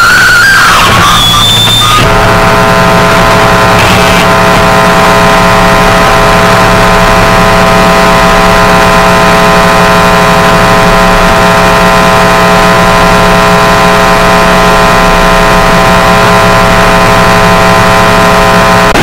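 Loud feedback noise: a short wavering squeal, then about two seconds in a steady droning tone of many stacked pitches sets in and holds unchanged until it cuts off near the end.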